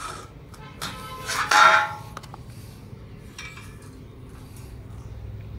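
Steel pieces clanking together with a ringing metallic tone, loudest about a second and a half in, then a lighter clink a couple of seconds later.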